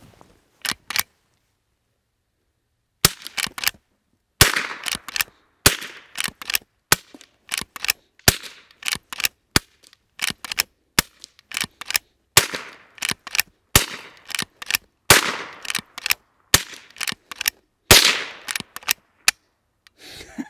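A string of shots from a Henry H001 .22 rimfire lever-action rifle, each followed by the clack of the lever being worked to chamber the next round. The ammunition is mixed, from primer-only Colibri up to hyper-velocity CCI Stinger, so the reports vary from soft pops to sharp cracks. The loudest comes near the end.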